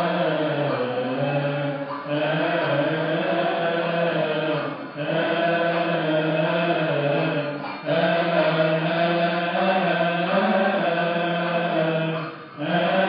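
Coptic Orthodox hymn chanted in unison by many voices, in long sustained phrases broken by brief breaths about every three seconds.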